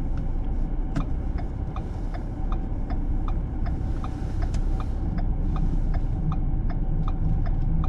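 Car engine and tyres running slowly over snow, heard from inside the cabin, with a turn-signal indicator ticking steadily, just under three ticks a second.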